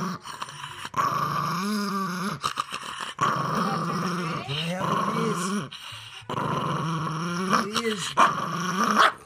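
Chihuahua growling to guard its bucket of candy, in three long spells that rise and fall in pitch, with brief breaks between them.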